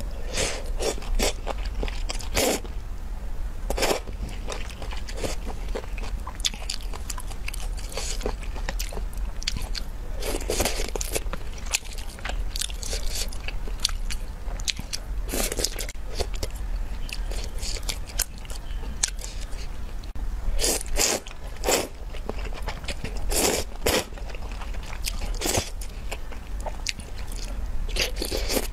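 Close-miked eating of thick noodles and tofu in spicy red sauce: wet chewing and biting with many short mouth clicks, and several longer slurps of about a second each spread through.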